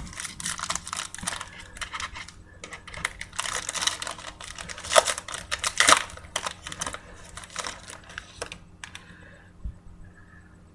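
Trading card pack wrapper being torn open and crinkled by hand, a dense crackling rustle that stops about 8.5 seconds in.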